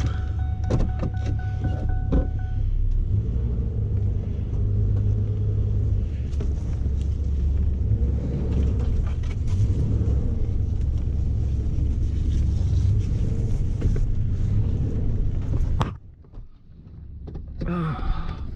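Pickup truck engine running with a steady low rumble, a few clicks and a faint steady tone in the first couple of seconds. The sound drops away suddenly about sixteen seconds in and comes back shortly before the end.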